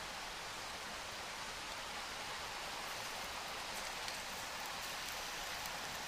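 Pancake batter sizzling in a hot Evernew titanium non-stick frying pan over a wood fire, a steady hiss with a few faint pops in the second half.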